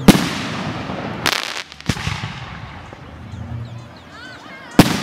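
Aerial firework shells bursting in a night display. A sharp bang comes just after the start, then a quick cluster of cracks about a second and a half in and another crack near two seconds. A second sharp bang, as loud as the first, comes near the end, with a low rumble between the bursts.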